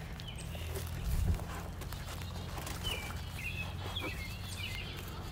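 Footsteps while walking, with a steady low rumble on the phone's microphone and a thump about a second in; faint bird chirps come in around three to four seconds in.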